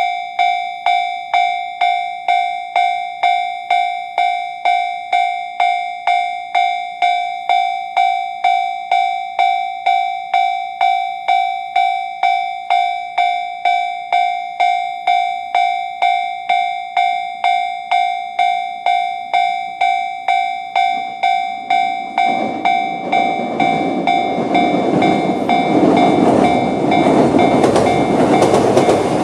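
Japanese railway level-crossing alarm sounding the JR standard electronic bell tone, a steady ding repeating about twice a second. About twenty-two seconds in, a JR E129 series electric train rises over it as it approaches and runs through the crossing, its rumble getting louder toward the end.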